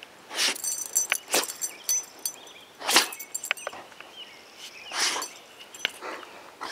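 A boxer dog sniffing with its nose in the grass and at shoes close to the microphone: a few short, noisy breaths at uneven gaps, the loudest about three seconds in.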